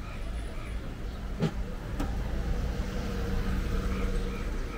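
A motor vehicle running close by on the street, its engine hum steady through the middle, with a couple of short knocks.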